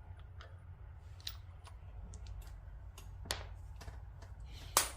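Scattered light metallic clicks and clinks of a hand tool and socket working a loosened crank balancer bolt on a turbo Buick engine, with a sharper metal clank near the end. A low steady hum sits underneath.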